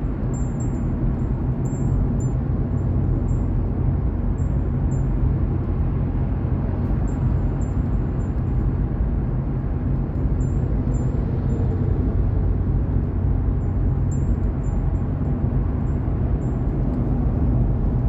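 Steady low rumble of vehicle noise, even throughout, with faint short high-pitched chirps coming and going above it.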